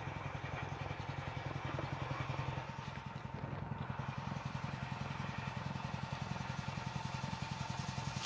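Small vacuum pump running steadily with a fast, even pulsing beat, pulling a milky oil-and-water emulsion out of a marine V8's crankcase through a hose into a glass jar.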